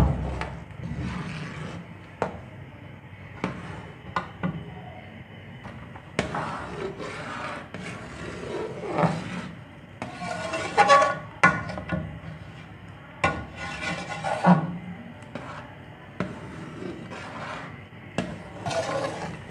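A metal spoon scraping and knocking around a large metal cooking pot as it stirs grated carrots in milk that is thickening into khoya, in repeated, irregular strokes.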